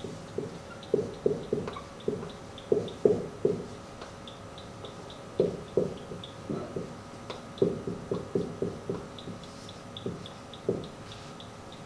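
Dry-erase marker writing on a whiteboard: an uneven run of short squeaks and taps as the letters are stroked out, coming in bursts with brief pauses between words.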